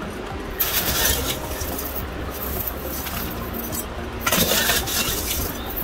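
Gritty bonsai soil mix of pebbles and small granules poured from a metal bowl into a bonsai pot: two rattling pours of about a second each, one about half a second in and one about four seconds in, over a steady low rumble.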